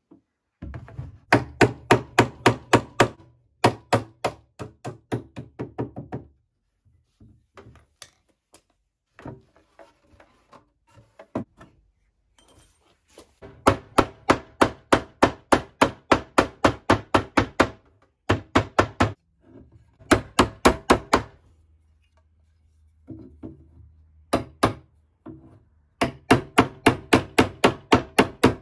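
Small hammer tapping rapidly on the nailed wooden edge strip of an old wooden chest's lid, about four or five blows a second in runs of several seconds with short pauses between, knocking the strip loose from its nails.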